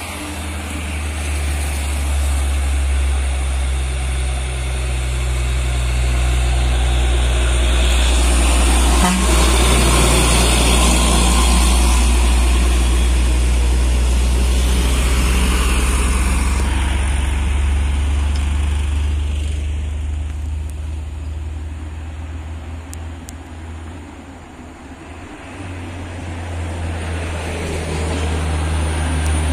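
Heavily loaded Hino 500 trucks' diesel engines labouring slowly up a grade: a deep, steady engine drone grows louder as the first truck approaches and passes, fades away, then rises again as a second truck climbs toward the camera near the end.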